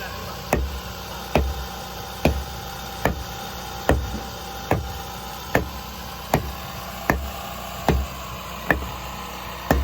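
Steady hammering: about a dozen evenly spaced blows, a little under a second apart, each a sharp knock with a dull thud.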